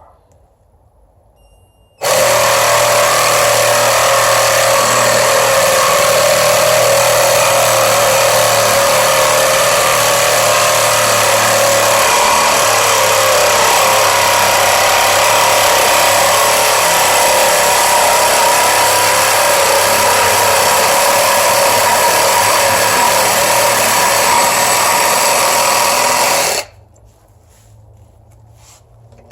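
Cordless 20V reciprocating saw with a brushed motor, running steadily as an 18-TPI metal-cutting blade saws through a metal pipe. It starts about two seconds in and stops a few seconds before the end.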